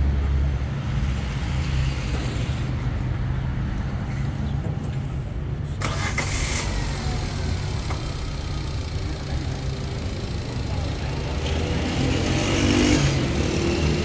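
Car engine idling steadily under an open hood.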